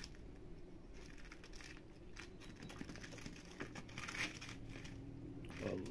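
A cat eating fish heads from a plastic-bag-lined tray: irregular small crinkles and crackles, busiest from about a second in until near the end.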